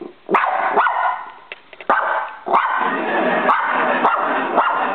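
Dog barking: a few separate barks in the first two seconds, then a dense, unbroken run of barking.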